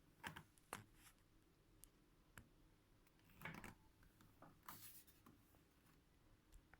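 Near silence broken by faint, scattered clicks and short rustles, a handful of small handling sounds.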